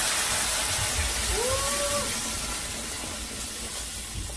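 Blended tomatillo and serrano salsa verde poured into very hot oil in a deep metal pan, sizzling and hissing loudly, then slowly easing off as the salsa settles into the oil.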